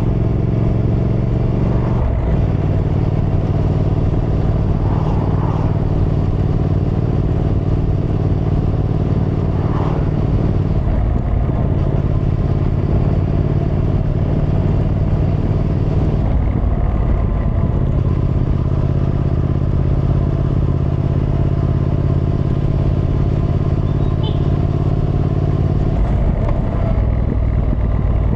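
Triumph Thruxton R's 1200 cc parallel-twin engine running under way at steady revs. Its note changes abruptly about four times, at each gear change or throttle change.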